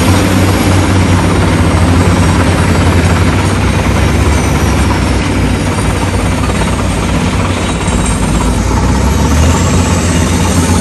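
Heavy truck's diesel engine running steadily under way, a loud low drone with road and cab noise over it.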